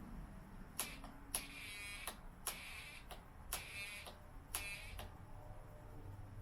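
Snap Circuits Morse code generator keyed by its press switch, spelling out the number 16: several short, high electronic tones, each begun and ended with a sharp click of the switch.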